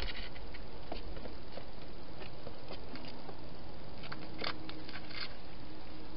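A hedgehog moving about inside a clear plastic feeding box makes irregular soft clicks and crackles, thickest about four to five seconds in as it heads out of the box, over a steady hiss.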